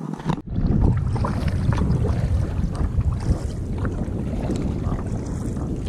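Wind rumbling on the microphone over water splashing and swishing as a sea kayak is paddled along.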